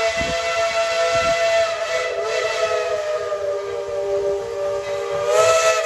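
Steam locomotive's chime whistle blown in one long blast, several notes sounding together. The pitch sags a little partway through, and the whistle swells louder near the end.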